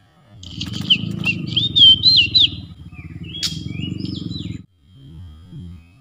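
Oriental magpie-robin singing: a quick run of rising and falling whistled notes, then a second shorter phrase with a sharp click in it, over a steady low rumble that cuts off abruptly.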